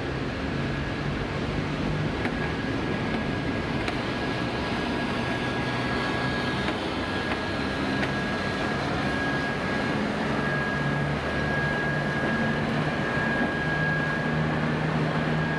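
TEP70BS diesel locomotive's V16 engine running as the locomotive moves off light, uncoupled from its train. It gives a steady low engine hum with a high, steady whine over it.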